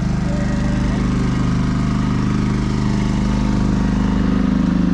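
An engine running steadily at idle, a constant low hum with an even drone.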